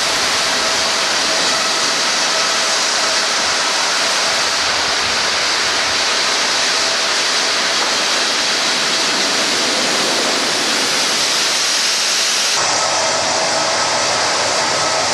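Sawmill machinery running: a loud, steady, noisy din with a faint steady hum in it. The sound changes abruptly a little before the end.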